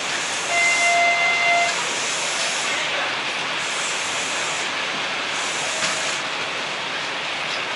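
Electric train running at speed, with a constant hiss of running noise and heavy rain. About half a second in, a steady whistle-like tone sounds for about a second.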